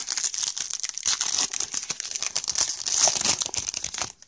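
Plastic wrapper of a Topps baseball card pack being torn open and handled: a dense, crackling crinkle that stops abruptly just after four seconds.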